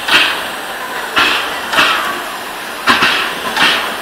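Exhaust chuffs of a TKt48 steam tank locomotive pulling away slowly, about five sharp chuffs at an uneven beat.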